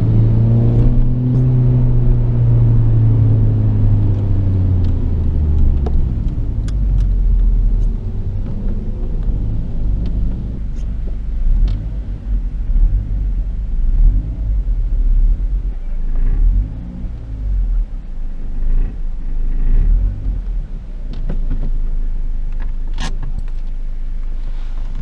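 Honda Civic Type R FN2's K20 four-cylinder engine heard from inside the cabin, its note falling over the first six seconds as the car slows, then a low rumble at low speed and idle. A few sharp clicks in the second half, the loudest near the end.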